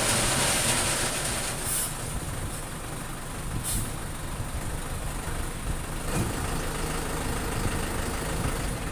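Steady background noise like distant road traffic, with two short hisses a couple of seconds apart and a faint high whine throughout.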